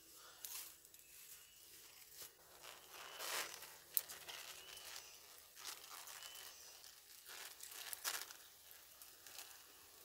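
Small plastic sachet being torn open and crinkled in the hands, in several short rustling bursts, with one sharp click about four seconds in.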